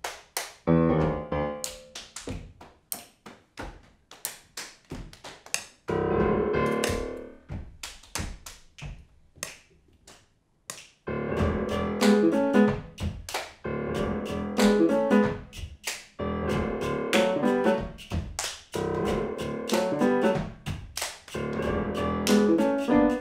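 Ad-lib body percussion, hand claps and slaps on the body, in sharp separate hits with a grand piano putting in a few chords. About eleven seconds in the piano settles into a steady run of chords under the clapping.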